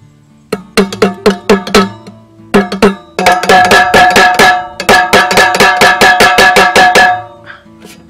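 Hammer blows on a metal formula tin fixed to a wooden board, each with a metallic ring. A few scattered strikes come first, then a fast, even run of about five blows a second for about four seconds. Faint guitar music plays underneath.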